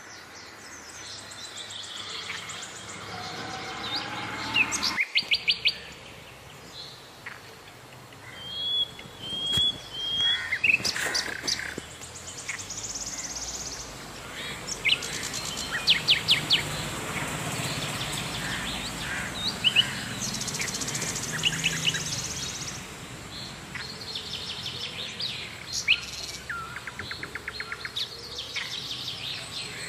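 Several birds chirping, with rapid trills of repeated notes and a few short whistled notes, over a soft background hiss.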